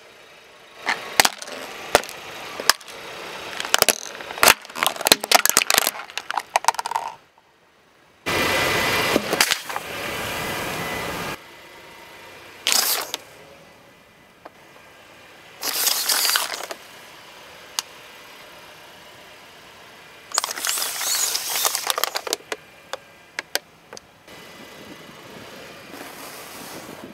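A car tyre slowly crushing plastic objects on asphalt: hand balloon pumps snap and crack in dense clusters over the first several seconds. Then come separate bursts of hissing noise, one about three seconds long and several shorter ones, with scattered cracks and clicks between them.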